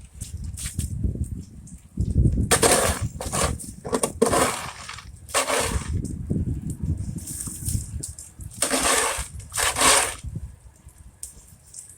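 Footsteps crunching on icy snow and slush, a short crunch about every second with some gaps, over a low rumble on the microphone.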